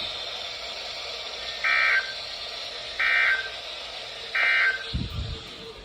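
Emergency Alert System end-of-message data bursts from a NOAA Weather Radio broadcast: three short digital bursts about 1.3 seconds apart, marking the end of the routine weekly test, over steady radio hiss. A brief low thump follows near the end.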